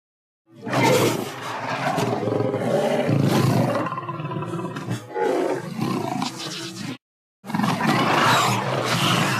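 Indoraptor roar, a designed dinosaur sound blended from a snarling Chihuahua, pig screams, cougar and lion, and a dental drill. One long roar of about six seconds, then after a short pause a second roar begins near the end.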